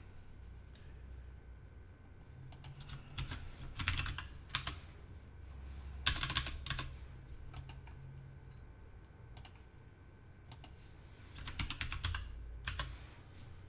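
Typing on a computer keyboard in short bursts of quick keystrokes, about three, six and twelve seconds in, over a faint low hum.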